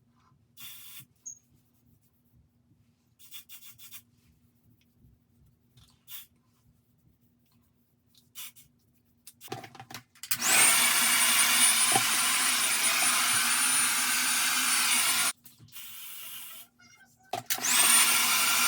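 Handheld hair blow dryer switched on, its motor whine rising as it spins up, then running steadily for about five seconds before cutting off; it starts up again for a second or so near the end. A few short, faint hissing or rustling bursts come before it.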